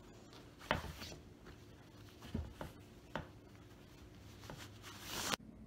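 Cotton sheet-fabric strips rustling and brushing as they are woven over and under the warp on a frame loom, with a few soft knocks. Near the end a longer rising swish of fabric stops abruptly.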